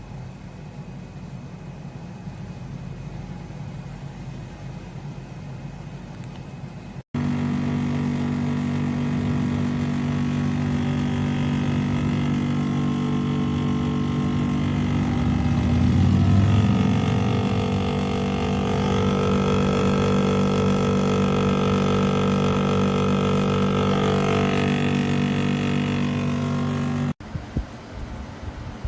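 Portable air conditioner running: a steady rushing noise at first, then abruptly a much louder steady droning hum of several fixed tones that swells briefly about halfway and cuts off suddenly near the end.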